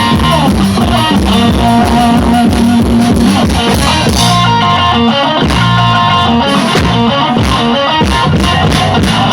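Band music led by guitars over bass, with a steady beat of drum hits, played loud.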